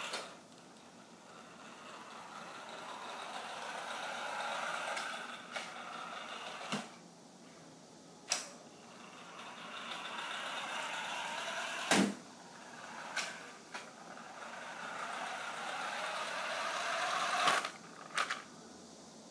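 Toy RC car's electric drive motor and gears whirring as it drives across a hard floor, swelling and fading about three times as it comes and goes. Several sharp clicks and knocks are mixed in, the loudest about twelve seconds in.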